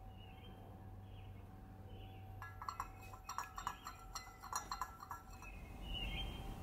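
A metal spoon stirring yogurt into milk in a glass measuring jug, clinking rapidly against the glass for about three seconds in the middle. Short faint high chirps come before and after.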